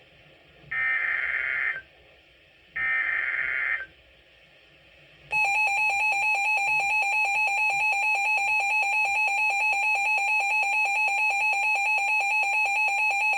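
Emergency Alert System signal: the last two of the three digital SAME header bursts, each a buzzy screech about a second long with a second's gap between them. About five seconds in, the steady electronic EAS attention tone starts and holds.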